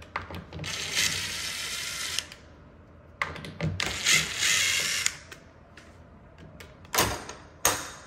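Cordless impact driver running in two bursts of about a second and a half and two seconds, backing stripped screws out of a door hinge and jamb. Two sharp knocks follow near the end.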